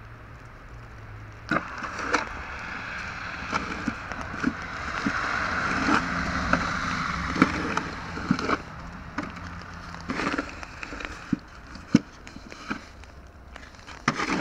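A vehicle's tyres swishing through wet snow and slush as it passes, building about a second and a half in and fading after about eight seconds, with scattered sharp clicks and knocks throughout.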